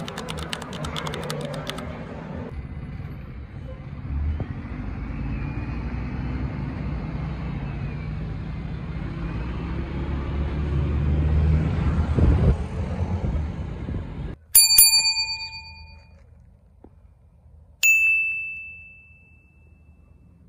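A city bus and street traffic running with a low rumble that swells, then cuts off suddenly. Then two bright bell dings about three and a half seconds apart, each ringing out and fading, from a subscribe-button sound effect. These dings are the loudest sounds.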